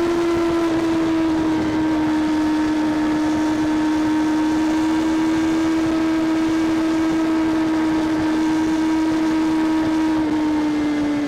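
Kawasaki Ninja ZX-6R's inline-four engine and exhaust running at steady high revs under way, one high, even note that sags slowly and falls in pitch near the end.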